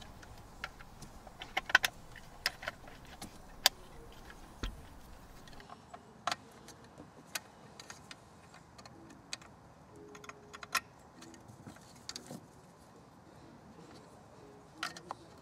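Plastic wiring-harness connectors being handled and plugged into the back of a car radio: scattered sharp clicks and light rattles, a few louder snaps in the first four seconds.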